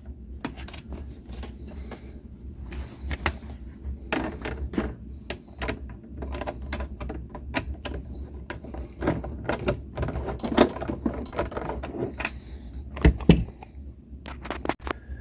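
Irregular clicks, taps and light metallic rattles of small parts being handled while the electrical cover plate of a garbage disposal is fitted and its ground screw tightened down. A faint steady low hum sits underneath.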